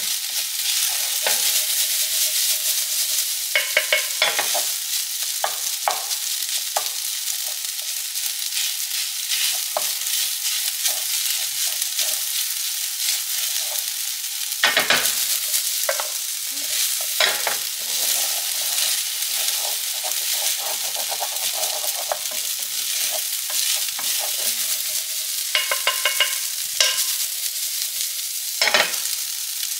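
Kimchi fried rice sizzling steadily in a frying pan while a wooden spatula stirs and turns it. The spatula scrapes and knocks against the pan every few seconds, sharpest about halfway through and near the end.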